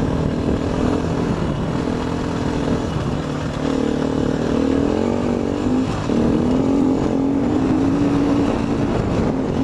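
Dirt bike engine running while riding along a dirt road, its pitch wavering with the throttle, with a brief dip about six seconds in.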